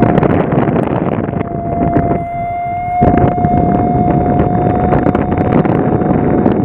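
Strong wind buffeting the microphone, with a steady single tone held through most of it; the wind noise eases for a moment about two seconds in.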